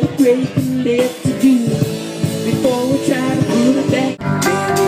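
A voice sliding up and down in pitch over live rock band music. A little after four seconds in, the sound cuts to steadier band music with guitar.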